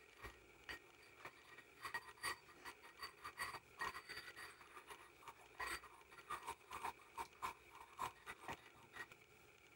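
Ceramic pestle scraping and clicking against a ceramic mortar as it grinds wet red madder pigment into water: a faint, irregular run of short scrapes and taps, thickest in the middle and thinning near the end.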